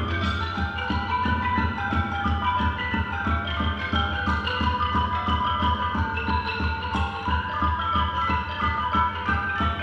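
Background music: a bright struck-note melody, like a xylophone or marimba, over a steady beat.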